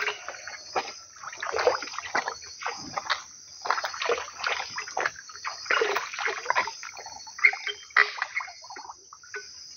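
Shallow river water splashing and sloshing in irregular bursts as people wade and work around a wooden canoe, with a steady high insect drone behind.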